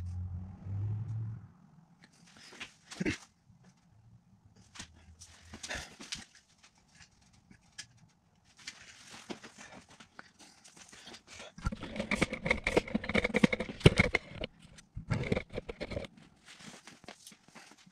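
A metal plant stand with cast-aluminium spacers being handled on a concrete floor. Scattered clicks and knocks, then a few seconds of dense clanking and rattling with a metallic ring past the middle, as the frame is shifted and set upright.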